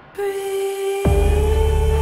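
Film soundtrack music: a held, steady note comes in, and about a second in a deep bass drone enters suddenly beneath it.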